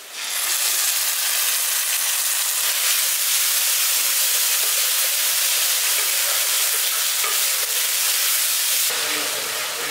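Ginger-garlic paste sizzling in hot oil with fried onions in a kadai, stirred with a wooden spatula. The sizzle starts suddenly as the paste goes in, then runs steady.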